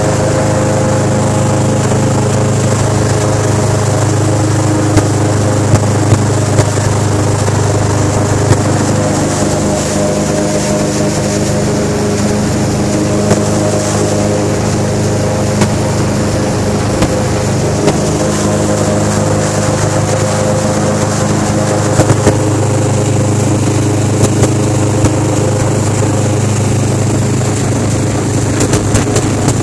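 Airboat engine driving its large air propeller, running loud and steady at an even pitch while the boat cruises across the water.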